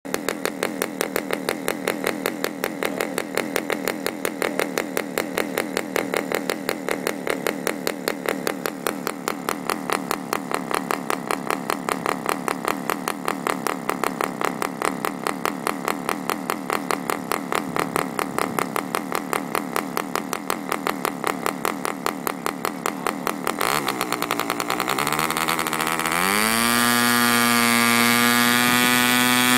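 Aurora K700 model aircraft diesel engine idling at low throttle with a steady pulsing beat. A little after 23 seconds the throttle is opened and the revs climb over about three seconds to a steady, high-pitched full-speed run.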